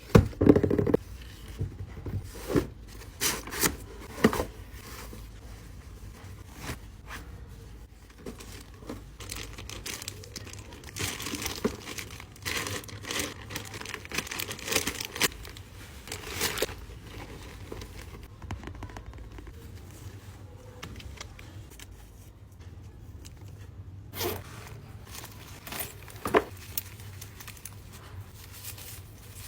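Packaging crinkling and tearing as a parcel is unwrapped by hand, in irregular bursts of crackles. These are busiest in the first few seconds and again about halfway through, with a couple of lone crackles near the end.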